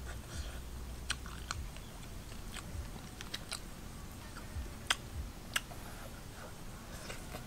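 Close eating sounds: chewing, with scattered sharp clicks and lip smacks, as roasted catfish is picked apart by hand and eaten.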